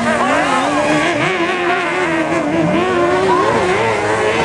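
Several dirt-track race car engines running hard at once, their pitches rising and falling independently as the cars accelerate and lift off.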